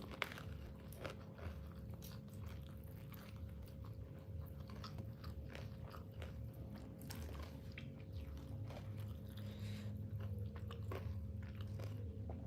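Close-miked chewing and biting of chicken, a scatter of small crunchy clicks and wet mouth sounds, over a steady low hum.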